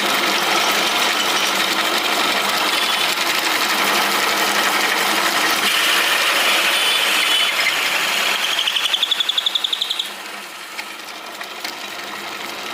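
Loud, steady metalworking machine noise, a power tool running on steel, with a fast pulsing rattle just before it stops about ten seconds in.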